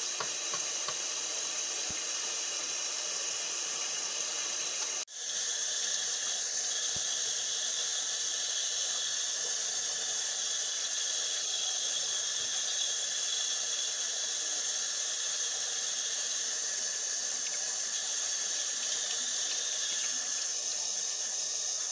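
Sink faucet running steadily, its stream pouring over hair and splashing into the basin. The sound cuts out briefly about five seconds in, then carries on as before.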